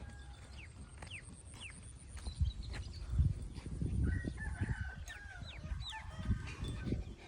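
Chickens calling and clucking, with short high calls that fall in pitch and a longer held call about four seconds in. Low thumps and rustling close by are the loudest sounds, starting about two seconds in.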